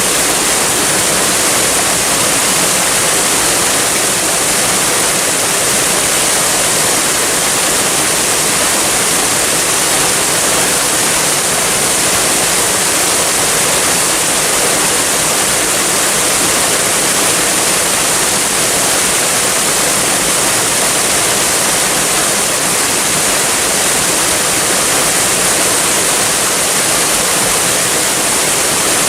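Waterfall: a steady, loud rush of falling water, bright and hissy, with no change in level.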